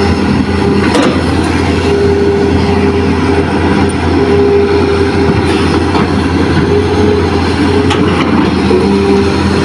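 Heavy diesel earthmoving machinery running steadily, with a low hum and tones that come and go. Three sharp metallic knocks come about a second in, past the middle, and near the end.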